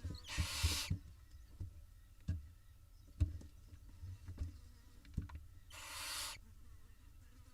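Barn owl nestlings hissing: two harsh, breathy calls of about half a second each, one just after the start and one about six seconds in. These are the snoring calls the chicks use to beg for food. Between them come soft knocks and scuffs as the chicks shift about in the nest box.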